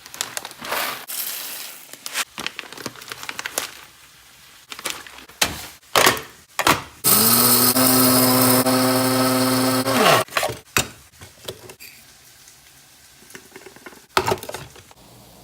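Kitchen handling: clatter, clicks and knocks, then a small electric kitchen appliance motor that spins up, runs steadily for about three seconds and winds down, followed by more knocks.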